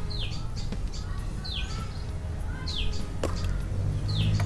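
A bird repeating a short downward-sliding call about every one and a half seconds, over a steady low rumble and a couple of sharp clicks.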